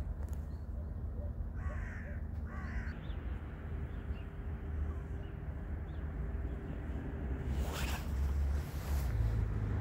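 Two short bird calls in quick succession about two seconds in, over a steady low rumble.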